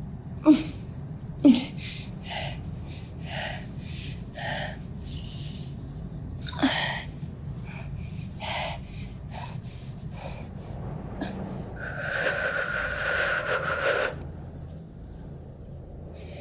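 A woman breathing hard in pain: a run of short, ragged breaths and sharp gasps, the two loudest about a second apart at the start, then a drawn-out strained cry of about two seconds near the end, over a steady low hum.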